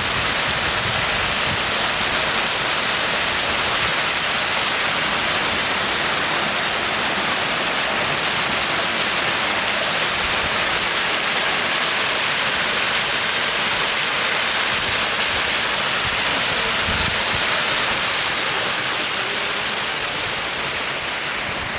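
Ortega Falls' main drop rushing steadily: a loud, even hiss of falling water.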